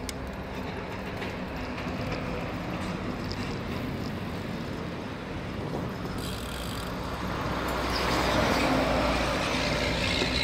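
Road traffic and wind noise heard from a moving bicycle, with a steady low engine hum. It grows louder about eight seconds in as a motor vehicle draws near.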